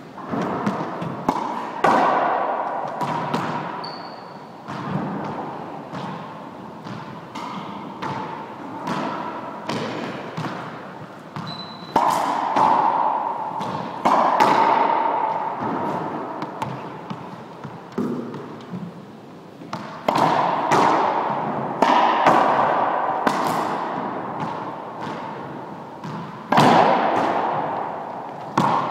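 Squash ball hit with a racquet and striking the walls and floor of an enclosed court: a rapid, irregular series of sharp smacks, each ringing on in the echoing room.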